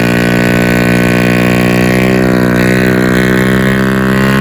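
Motorcycle engine running through an SC Project aftermarket exhaust, held at fairly steady revs with a slight rise and fall about halfway.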